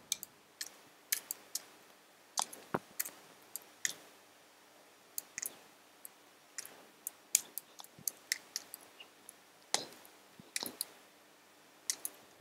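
Keystrokes on a computer keyboard as a name is typed into a form: faint, sharp clicks at an irregular, unhurried pace.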